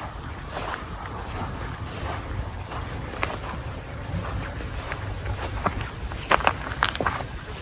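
An insect chirping, a high thin note pulsed about five times a second, which stops about seven seconds in. A few sharp crunching steps sound just before it stops.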